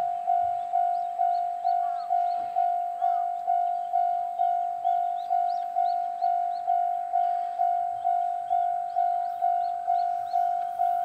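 Railway level-crossing warning bell ringing in a steady, even rhythm of about two strokes a second, the signal that a train is approaching. Birds chirp faintly over it.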